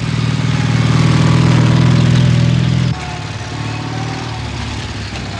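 Motorcycle-and-sidecar engine running steadily and loud. About three seconds in it cuts off abruptly to a quieter, steady engine sound.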